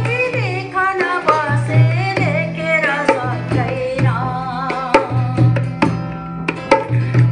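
Music with a steady hand-drum rhythm and a wavering melody line over it.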